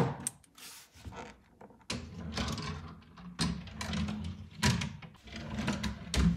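Pine drawers sliding in and out of a wooden cabinet on roller drawer slides: rolling rumbles from the slide wheels, with several knocks as the drawers close.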